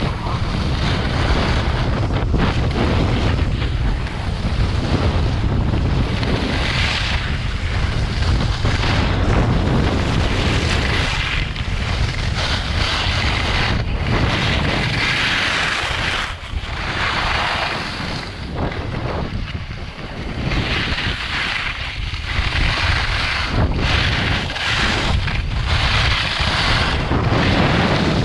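Wind rumbling on the microphone of a camera carried by a downhill skier, with surges of hiss from the skis scraping over packed, groomed snow that rise and fall with the turns.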